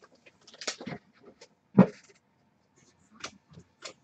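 Trading cards being handled at a table: short paper rustles and light clicks as cards are flipped and slid. A single short, loud sound about two seconds in stands out above the card handling.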